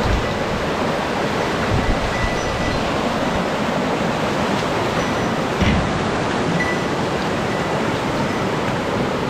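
Fast-flowing mountain stream, a steady loud rush of water, with a couple of dull low bumps about two seconds in and around the middle. The anglers suspect the stream has risen with the rain.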